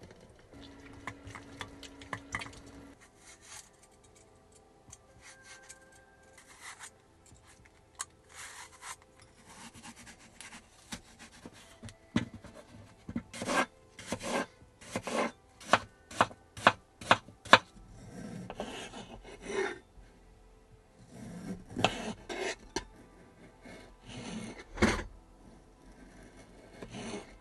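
An orange being twisted by hand on a stainless steel citrus reamer, a rubbing, grinding sound. Then a knife cuts an apple on a wooden cutting board in a run of sharp strokes, about two a second, followed by a knife paring the skin off a kiwi near the end.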